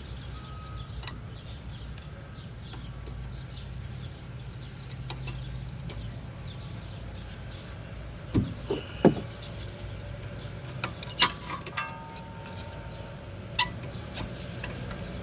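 Sharp metal clicks and knocks from about halfway in: a flat screwdriver prying a rear brake caliper off its bracket, one knock ringing briefly. A low steady hum runs under the first half.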